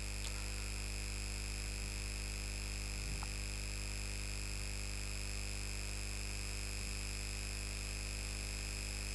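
Steady electrical hum with a thin, steady high-pitched whine: mains-type interference picked up in the recording chain.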